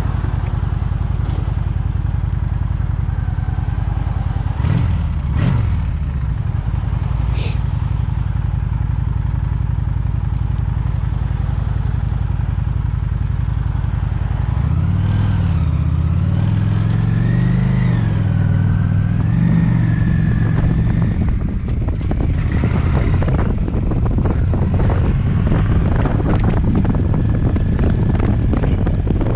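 Honda Shadow Phantom's V-twin engine running under way, heard from the rider's camera along with wind rush. About halfway through, the engine note climbs and dips for several seconds as the bike changes speed.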